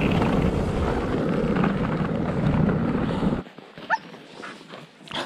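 Steady rushing noise of a dog sled on the move, wind and runners over snow, which cuts off abruptly about three and a half seconds in. Then a harnessed sled dog gives a short rising whine.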